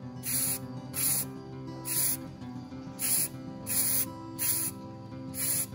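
Spray paint hissing out in short bursts, about seven of them, roughly one every three-quarters of a second, with background music underneath.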